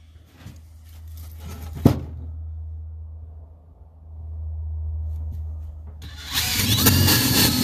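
A sharp knock about two seconds in, then about six seconds in a DeWalt cordless drill starts and runs with a steady whine, its long bit boring into a log.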